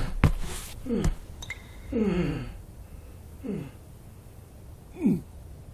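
A man's short strained groans and gasps, each one falling in pitch, coming about once a second, the longest about two seconds in. A few sharp knocks sound near the start.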